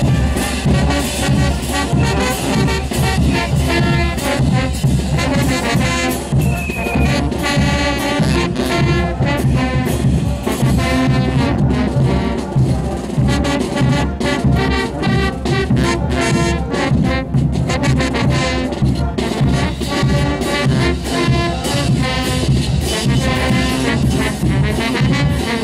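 Brass band playing a dance tune, trumpets and trombones over a steady rhythmic beat.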